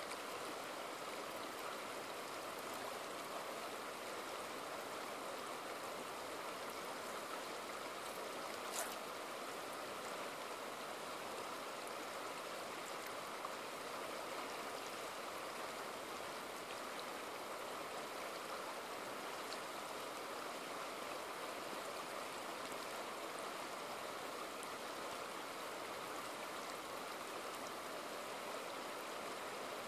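Shallow river water rushing and riffling over rounded boulders, a steady, even sound, with one brief tick about nine seconds in.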